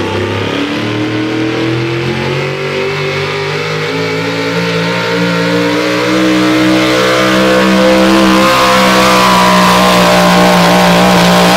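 Modified 4x4 pulling truck's supercharged engine at high revs under full load, pulling the weight sled. Its pitch climbs over the first second, then holds high and steady, growing a little louder from about halfway.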